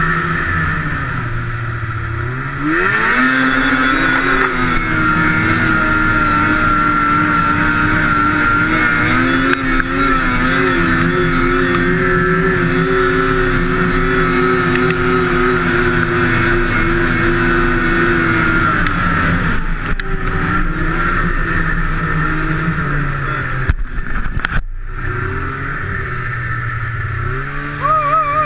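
Two-stroke snowmobile engine idling, then revving up about two seconds in and held at a steady high speed for some fifteen seconds before dropping back to idle. A few sharp clicks come near the end, followed by a short rise in revs.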